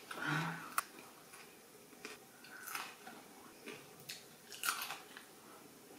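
A person chewing sushi close to the microphone: a sharp click a little under a second in, then a few short, wet mouth sounds spaced about a second apart.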